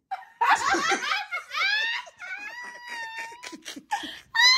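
People laughing and giggling, with a high-pitched voice rising into a long held squeal. Near the end a louder, sustained high voice starts.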